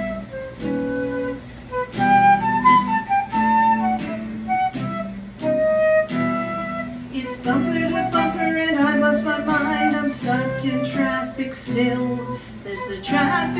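Band rehearsing a song's instrumental intro: guitar picking chords under a melody of held notes on a flute-like wind instrument.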